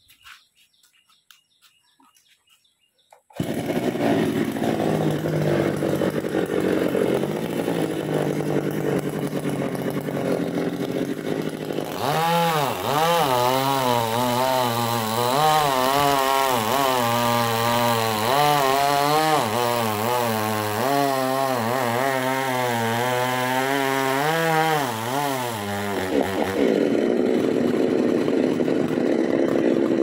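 A two-stroke petrol chainsaw cuts in suddenly about three seconds in. From about twelve seconds its engine pitch wavers up and down over and over as it works through a coconut palm trunk, then steadies near the end.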